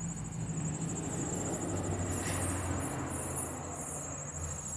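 Crickets trilling in a steady, high, continuous chorus, over a low rumble.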